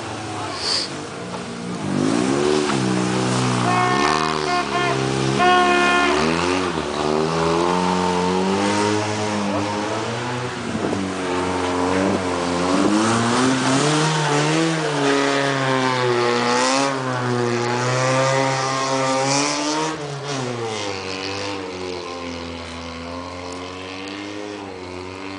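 FSO Polonez Caro's Rover 1.4 engine revving up and down over and over as the car drifts on snow, fading away over the last few seconds.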